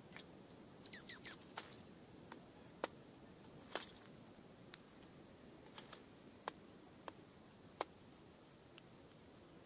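Faint, irregular sharp ticks and clicks from dark-eyed juncos feeding at a metal seed tray, beaks pecking at seed and small feet hopping, about a dozen over the stretch.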